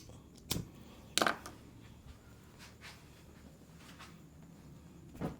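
Four short, sharp sounds of hands working during a head massage, slaps or taps on the head and shoulders, the loudest a little over a second in.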